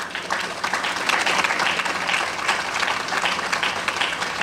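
A crowd applauding, a dense patter of many hands clapping at the close of a speech.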